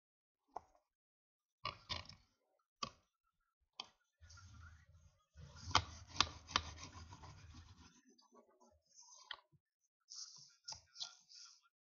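Paper envelope being scored along its fold lines with a fold-marking tool: a few sharp clicks and taps, then a longer rubbing, scraping stroke with some clicks in the middle, and more short clicks of handling near the end.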